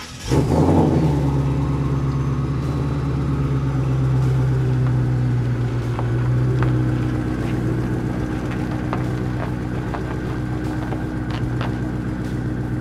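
Twin-turbocharged Ford Coyote 5.0 V8 in a 1979 Ford F100 starting up with a brief flare, then idling steadily through a dual 3-inch exhaust with Vibrant mufflers.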